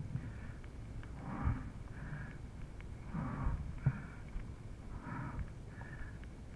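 A mountain biker's hard breathing, an in-breath and an out-breath about every two seconds, over a low rumble with scattered light clicks.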